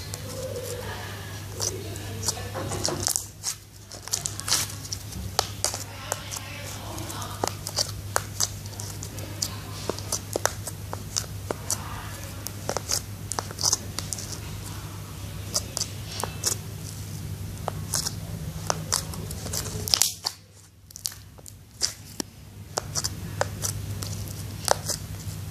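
Homemade black slime, made from glue and ink, being worked by hand: irregular wet, sticky clicks and pops as it is squeezed and pulled, over a steady low hum.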